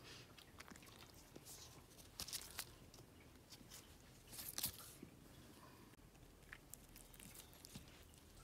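Faint crinkling and crunching of dry ginkgo leaves as a kitten bites and paws at them, in a few short bursts, loudest about two seconds in and again about four and a half seconds in.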